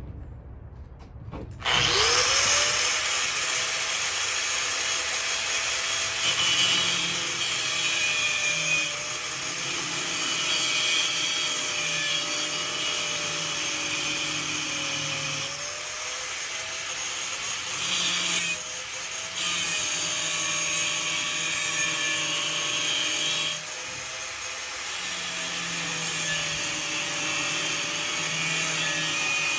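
Electric angle grinder spinning up and then grinding steel motor-mount brackets, a steady motor whine under a harsh hiss. Its pitch sags briefly now and then as it bears into the metal.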